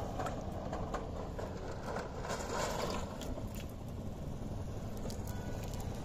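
Small fish stirring in shallow water in a metal basin: scattered light slaps, splashes and clicks over a steady low rumble.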